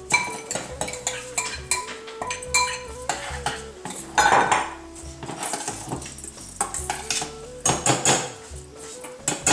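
Metal spoon and bowls clinking and scraping against a stainless steel saucepan while rice and lentils are tipped in and stirred: a busy run of sharp clinks and knocks, with a longer scraping stretch about four seconds in.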